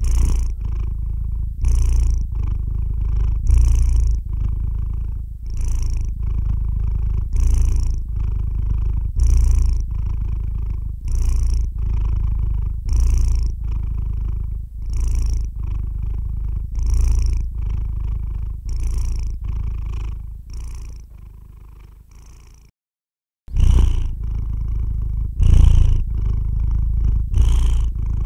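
Calico cat purring while asleep: a steady low rumble that swells with each breath, about once every two seconds. The sound fades and drops out for under a second about two-thirds of the way through, then resumes.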